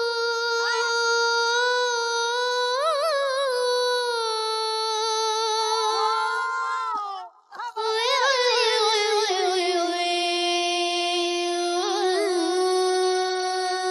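A child singer's high voice sings unaccompanied and without words: long held notes with quick ornamental turns, in two phrases with a short break about seven seconds in.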